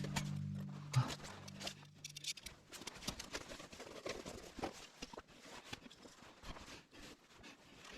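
Background music fading out about two seconds in, followed by faint, irregular small clicks and taps.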